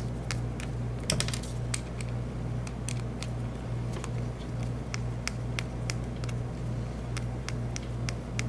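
Light, irregular metallic clicks and ticks of a small screwdriver working out the long screws at the back of a mortise lock cylinder, over a steady low hum.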